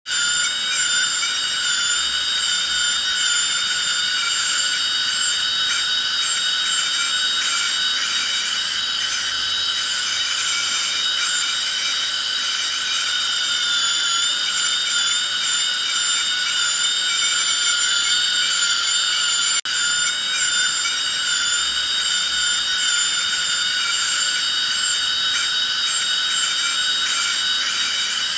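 Dental drill handpiece running with a steady high-pitched whine whose pitch wavers slightly, cutting out for an instant about two-thirds of the way through.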